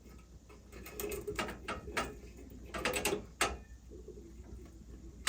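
Scattered small clicks and ticks of hands and tools working on furnace igniter wiring, coming at irregular intervals over a low hum.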